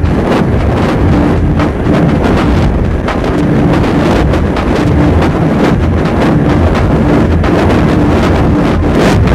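Harsh noise music in the power-electronics style: a loud, dense wall of distorted noise, even in level, with a choppy low rumble underneath and a broken, stuttering tone in the middle.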